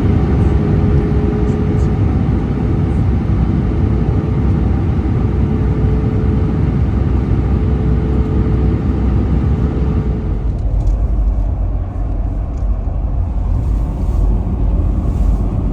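A motor vehicle's engine running steadily with a deep rumble and a steady whine; about ten seconds in the whine stops and the low rumble grows heavier.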